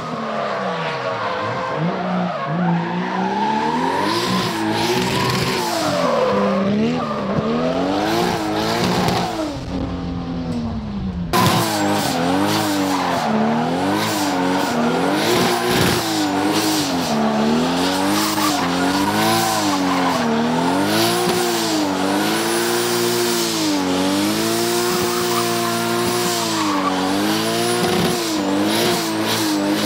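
Drift car engines revving hard, pitch swinging up and down about once a second as the throttle is worked through the slide, with tyres squealing. The sound changes abruptly to a second car about eleven seconds in.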